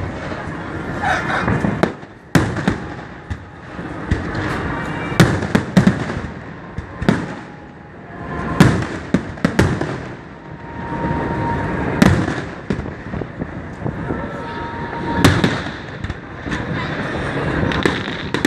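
Aerial fireworks bursting: loud bangs at irregular intervals, a second or more apart, with crackling and rumble between them.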